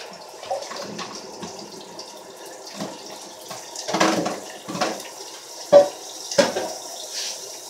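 Kitchen tap running water into a sink, with a few sharp knocks in the second half.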